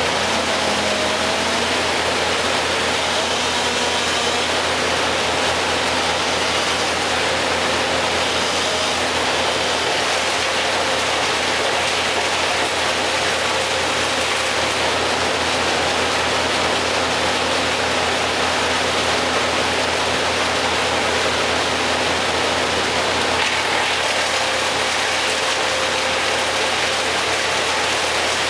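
A steady engine running at idle under a constant hiss, without change in pitch or level.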